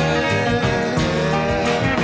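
Late-1960s rock band recording in a mono mix: a male lead vocal holds the word "care" over guitars, bass and drums.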